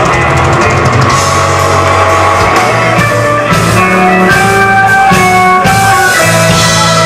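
Live blues band playing loud: electric lead guitar playing held single notes over bass guitar and drums.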